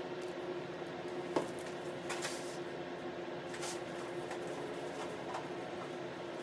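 Cellophane-wrapped chocolates crinkling and lightly tapping as they are set by hand on a serving tray, with a few short crackles and a sharper tick about a second and a half in, over a steady faint hum.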